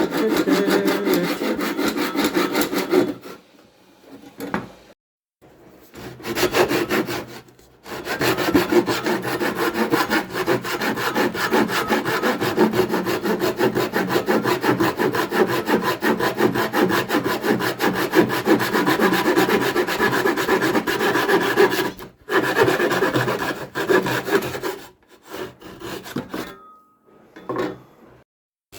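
Bosch Professional reciprocating saw, mounted in a bone-cutting table, sawing with fast repeated strokes through bone. It stops and restarts several times: one long run in the middle, and short stop-start cuts near the end.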